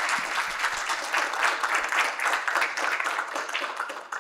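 Audience applauding: a dense, steady patter of many hands clapping at once.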